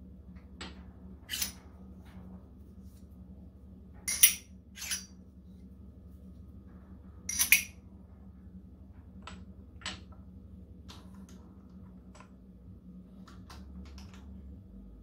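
Steel parallels and metal blanks clinking and knocking against each other and the steel jaws of a milling-machine vise as they are set up by hand. Four sharper clinks come in the first eight seconds, then lighter taps, over a faint steady hum.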